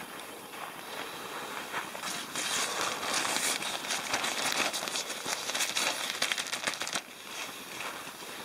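Stiff, frost-covered nylon fly of a Snow Peak dome tent being handled and pulled open, crinkling and crackling with many small crackles. It is loudest from about two seconds in until about seven seconds.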